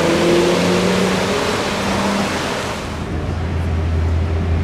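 Supercar engine accelerating away, its note rising and then holding steady before fading, under a loud hiss that drops away about three seconds in, leaving a low steady hum.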